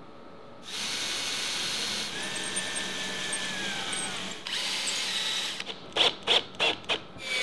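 Cordless drill driving wood screws into a timber ridge-capping piece. It runs steadily for about four seconds, then again briefly, then in several short trigger bursts near the end as the screw is seated.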